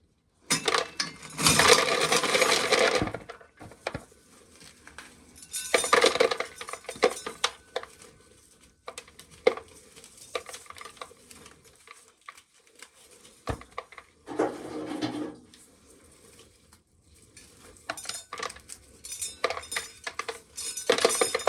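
Dry shelled corn kernels rattling in a container in three louder bursts, about two seconds in, around six seconds and around fourteen seconds, with scattered clicks of single kernels in between.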